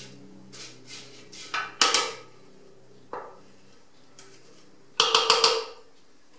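Spatula scraping crushed ice and coffee mix down the inside of a stainless-steel Thermomix mixing bowl: a few separate scrapes and knocks, with a louder clatter about two seconds in and again about five seconds in.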